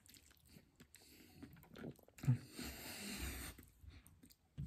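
Faint mouth sounds of a man eating spicy instant noodles. It is mostly quiet, then a short slurp comes a little past two seconds in, followed by a breathy sucking sound lasting about a second.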